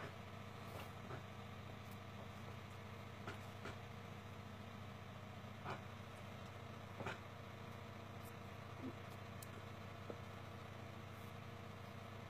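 Room tone: a low, steady hum with a few faint, brief clicks or taps scattered through it.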